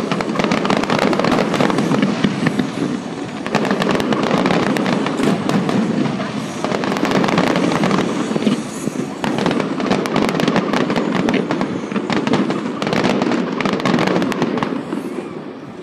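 Fireworks display: many overlapping bangs and crackles from aerial shells and low, wide effects fired along a river, dying away near the end.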